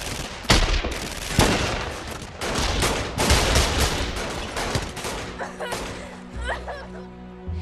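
Volley of gunshots, many shots in quick succession, thinning out about five seconds in and giving way to a low sustained music tone.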